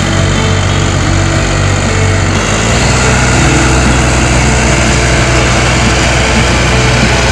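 Iseki Geas NTA343 compact tractor's diesel engine running steadily under load. About two and a half seconds in, the sound turns rougher and fuller as the RAN18S rotary tiller behind it churns through grass and soil.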